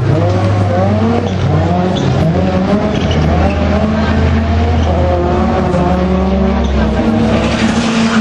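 Off-road racing cars running hard on a circuit, engines revving with pitch rising and dropping back repeatedly as they go through the gears.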